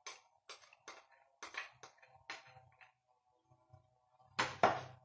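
Soft irregular tapping and scraping, two or three a second, as condensed milk is emptied from a small bowl into a mixing bowl. About four seconds in come two loud clinks as bowls are set down and stacked on the table. Faint music plays underneath.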